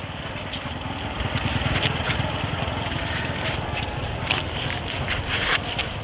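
A Belgian Malinois leaping up and tugging on a cloth, its feet scuffing on concrete: scattered scrapes and taps over a steady low rumble.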